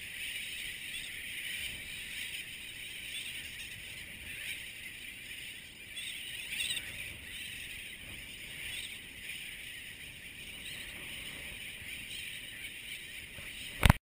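A large seabird colony calling all at once: a dense, unbroken chatter of many birds. A sharp click near the end.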